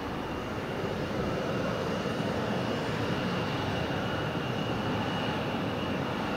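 Airliner engines running steadily: a continuous rushing noise with a steady high whine.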